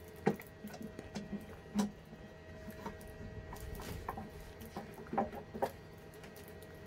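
Scattered light metal clicks and knocks as an old bench vise is worked by hand, its stiff screw and jaws being moved to get it turning again.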